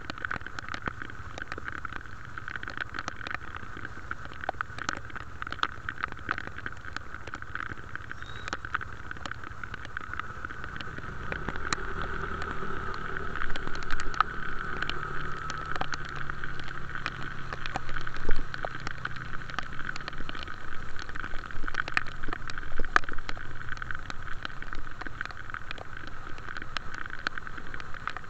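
Travelling along a road in traffic: a steady hiss of road and wind noise with many sharp ticks through it, and a deeper engine rumble that swells from about eleven seconds in and fades again, with a few louder bumps along the way.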